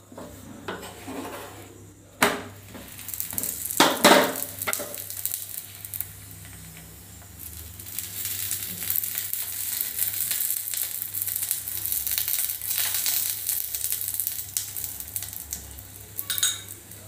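Oil sizzling on a hot non-stick tawa under a frying dal puri, a steady hiss that builds a few seconds in and holds. A spoon knocks sharply about two and four seconds in, and clicks once more near the end.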